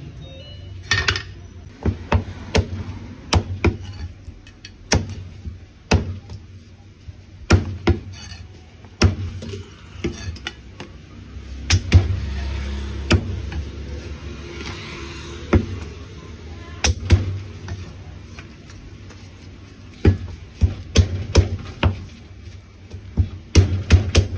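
Heavy cleaver chopping roast poultry on a thick wooden chopping block: a series of sharp, irregular knocks, coming in a quicker run near the end.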